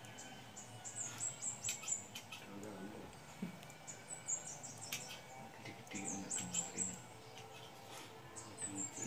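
Small birds chirping: short high-pitched calls in quick falling runs, repeating every couple of seconds, with a few sharp clicks and a faint murmur of voices underneath.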